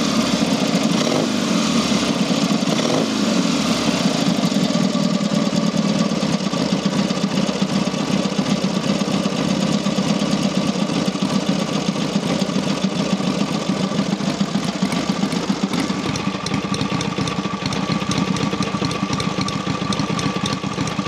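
Matchless G12 650 cc parallel-twin engine, freshly rebuilt and hot, idling. Its speed rises and falls a few times in the first few seconds, then it settles into a steady tick-over, described as very crisp.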